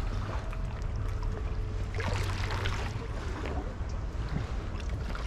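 Steady low rumble of a boat engine, with a short rush of noise about two seconds in.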